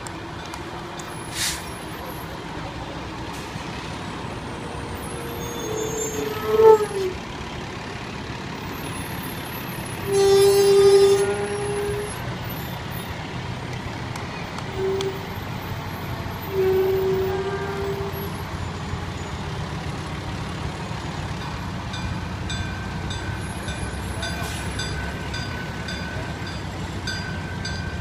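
Fire trucks rolling slowly past with their diesel engines running, sounding air-horn blasts: a short blast dropping in pitch about six seconds in, a longer blast of about two seconds around ten seconds in, then two shorter toots.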